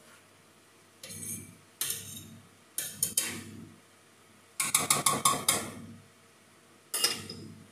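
Kitchen clatter: a spoon knocking and scraping in a metal cooking pot in five short bursts, with a quick run of sharp clicks about halfway through.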